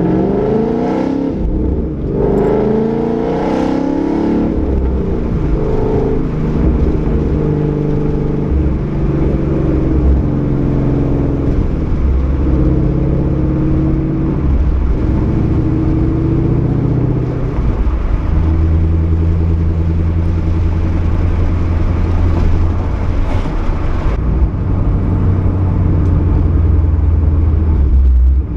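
Ford Mustang 5.0's V8 through a Roush axle-back exhaust with an off-road X-pipe, accelerating with a rising note over the first few seconds. It then drives on with the pitch dropping and climbing a few times, and settles into a steady low drone for the last ten seconds or so.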